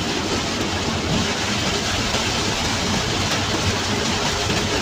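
Steady rain and road noise inside the cab of a Suzuki New Carry pickup driving in heavy rain: rain on the roof and windscreen mixed with the engine and the hiss of tyres on the wet road.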